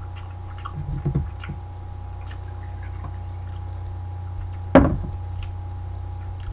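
A steady low hum with faint small ticks, then a single sharp knock about three-quarters of the way through as a bottle of bokbunja wine is set down on the table after pouring.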